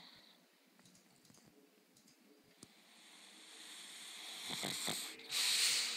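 Pug snoring: after a quiet start, a hissing breath builds over about two seconds, then a shorter, louder puff of breath comes near the end.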